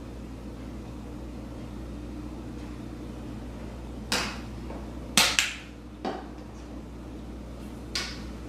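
A few sharp clicks and knocks of small kitchen items being handled and set down on a countertop: the measuring spoon, and the plastic concentrate bottle and its caps being picked up. They start about four seconds in, two close together just past five seconds, over a steady low hum.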